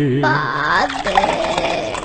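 Singing with backing music: a held, wavering sung note ends a line, then other pitched sung or played lines follow.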